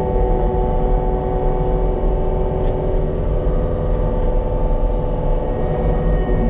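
Diesel engine of heavy earthmoving equipment running steadily under throttle, a constant engine drone with no change in pitch.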